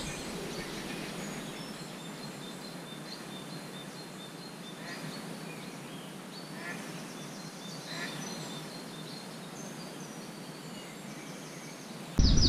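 Quiet lakeside ambience: a steady background hiss with faint, scattered small-bird chirps. Near the end the sound jumps suddenly louder.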